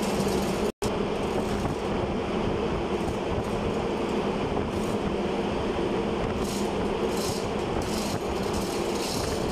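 Steady drone of running machinery in an engine room: a low rumbling hum carrying a couple of steady tones. The drone cuts out for a split second about a second in.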